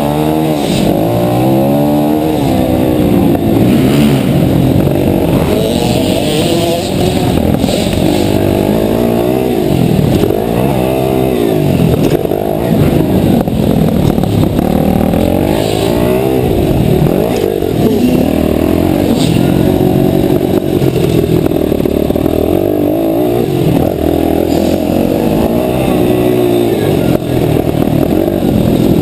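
Mini motocross bike's engine, heard close from the rider's helmet, revving up and falling back again and again every couple of seconds as it is ridden round a tight dirt track.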